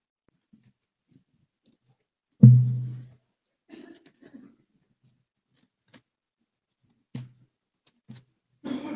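Thin Bible pages being leafed through and rustling close to a pulpit microphone, in short scattered rustles. One louder thump against the pulpit or microphone about two and a half seconds in.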